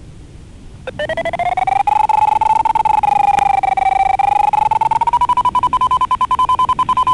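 Variometer beeps from a DIY Arduino sailplane vario, heard through a 433 MHz FM handheld transceiver. After about a second of radio hiss, a rapid beeping tone cuts in, rises in pitch, then steps higher and holds. This is the climb signal as the glider gains height.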